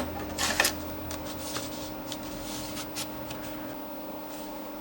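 Scattered light clicks from a vintage Dimension 68000 computer and its keyboard, over a steady electrical hum. A cluster of louder clicks comes about half a second in, then single clicks at uneven gaps.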